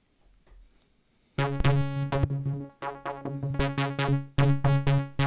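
Nunomo Qun mk2 synthesizer playing a quick run of repeated low notes on one pitch, starting about a second and a half in. Their brightness changes from note to note as the sound is shaped with the second filter.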